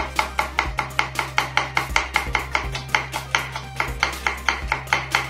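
Chef's knife slicing a red onion thinly on a wooden cutting board: a quick, even run of knife knocks against the board, about five a second.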